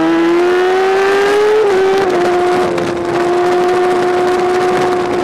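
Superbike engine at high revs on board at track speed, its note climbing for about a second and a half, dipping briefly near two seconds, then holding a steady high pitch over wind rush.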